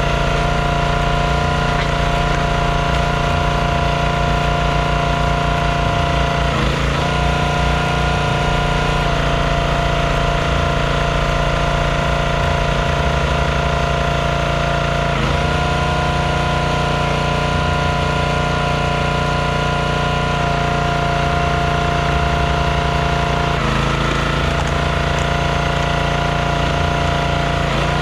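Small gas engine of a hydraulic log splitter running steadily, its note shifting briefly three or four times as the ram pushes through logs.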